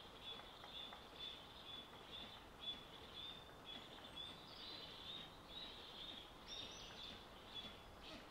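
Faint birdsong: a small bird repeating short high notes, about two to three a second, some pitched a little higher than the rest, over quiet outdoor background.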